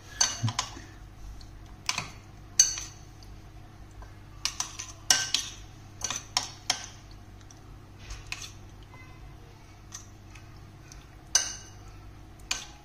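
Metal spoon stirring a wet mixture in a ceramic bowl: irregular sharp clinks and scrapes as it knocks the bowl's sides.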